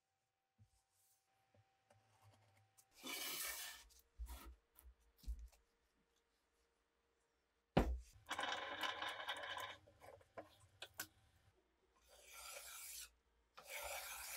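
Rubbing and handling noises with a few knocks as masking tape is pressed along a steel knife blade, then near the end two rasping strokes of a flat hand file drawn along the blade's edge.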